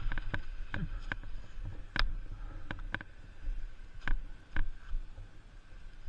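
A KTM EXC 450 single-cylinder four-stroke engine ticks over at a low, steady idle. Sharp clicks and knocks come at irregular intervals over the top of it, about nine in six seconds.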